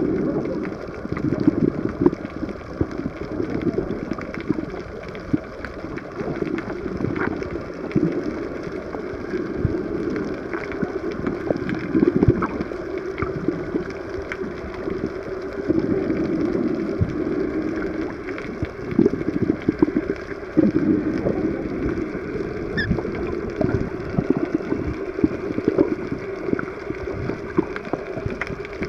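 Underwater sound picked up through a camera's waterproof housing: a muffled, churning water noise that swells and fades every few seconds, with scattered faint clicks.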